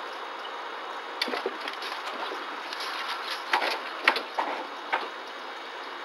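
A scattered run of sharp knocks and clicks, loudest about three and a half and four seconds in, over a steady hiss.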